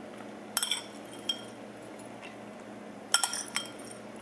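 Metal spoon clinking against a small ceramic bowl while scraping chopped bacon out of it: a quick double clink a little over half a second in, a lighter tap about a second in, and a cluster of three clinks at about three seconds, each with a brief ring.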